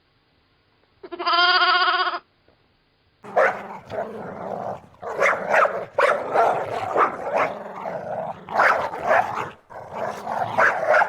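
A single bleat lasting about a second, then, about three seconds in, a dog barking repeatedly in quick, irregular bursts.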